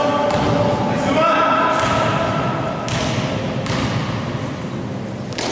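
A basketball bounced on a gym floor, a few single thuds about a second apart, with voices calling from players and spectators.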